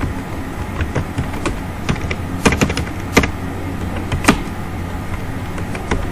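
Computer keyboard keys being typed at an unhurried, uneven pace: a string of separate clicks, a few a second, over a steady low hum.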